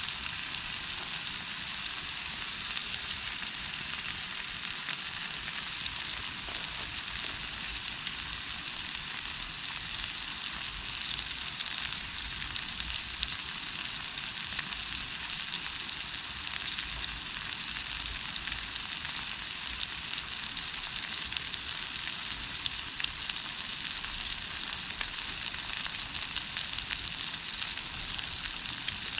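Formed meat sizzling over a campfire: a steady hissing with scattered small pops.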